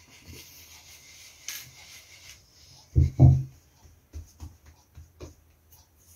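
Bread dough being shaped on a floured wooden board: a rubbing hiss for the first two seconds, then two heavy thumps about three seconds in, followed by four lighter pats as a hand presses the dough flat.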